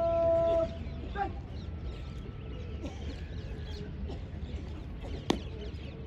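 A parade commander's drawn-out shouted word of command, held on one steady, slightly falling pitch, cuts off less than a second in. Then there is a low steady background, with one sharp knock about five seconds in.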